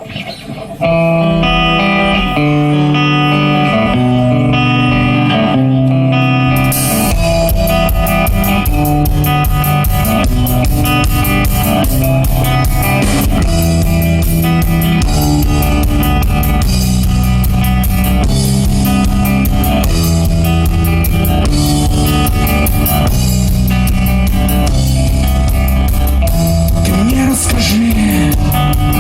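Rock band playing an instrumental intro: guitar picking a melody, joined about seven seconds in by drum kit and the rest of the band.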